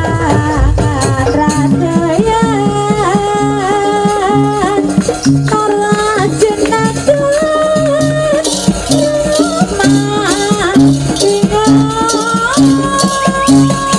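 Live jaranan sampak music from a Javanese jaranan ensemble: a wavering, ornamented melody line over a steady, evenly repeating pattern of low notes and drumming.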